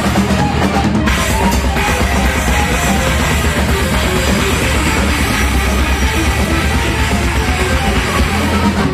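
Heavy metal band playing live: distorted electric guitars, bass and a fast, driving drum kit with rapid bass-drum hits, in an instrumental passage without vocals.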